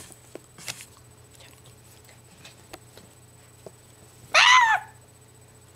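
A small dog whines once, a short rising-and-falling whine about four seconds in, over faint small clicks of the dog licking and snuffling at close range.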